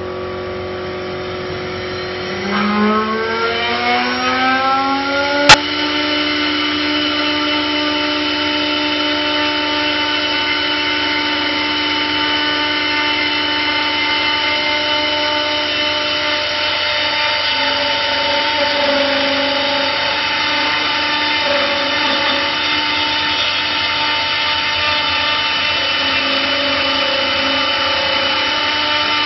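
Single-axis two-blade automatic wood lathe running while it turns a wooden spindle: a whine rises in pitch for a few seconds as a motor spins up, a sharp click follows, then the machine runs steadily with a high whine over the noise of cutting. In the second half a lower tone comes and goes.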